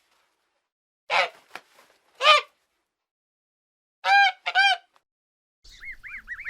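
Goose honking: four separate honks, the last two in quick succession. Near the end, rapid high-pitched peeping starts over a light background hiss.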